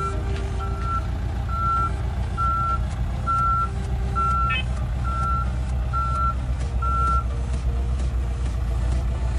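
Case 580N backhoe loader's reverse alarm beeping steadily about once a second over its diesel engine running; the beeping stops about seven seconds in as the machine stops backing up, leaving the engine running.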